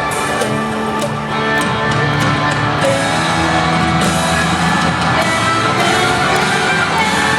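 Music with sustained chords played over a stadium's public-address system in a domed ballpark, with scattered sharp cracks mostly in the first few seconds.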